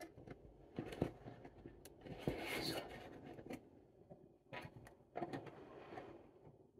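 Small metal clicks and rattles of a wire-mesh live-catch mouse trap being handled while its trigger wire and bait pin are set. The sounds are irregular, with a longer rattling scrape about two and a half seconds in.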